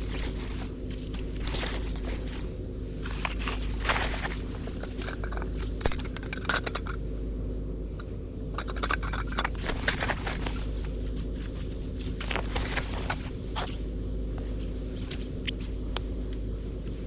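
Irregular scraping, rustling and clicking of objects being handled, over a steady low hum.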